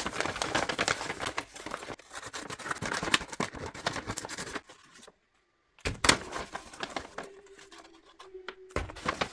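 Paper being handled and crinkled close up: dense rustling and crackling for about four and a half seconds, then a short break, a sharp tap, and softer scattered rustles and clicks.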